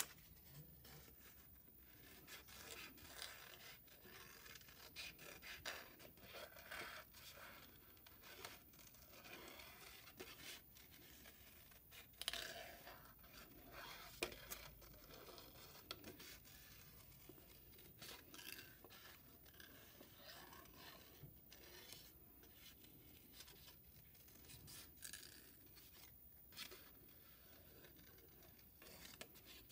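Scissors cutting construction paper: faint, irregular snips as the blades work around a curved outline, with light paper rustling.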